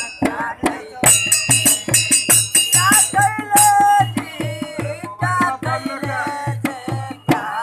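A young man singing, clashing a pair of small brass hand cymbals (manjira) in time, while a dholak barrel drum beats a steady rhythm beneath.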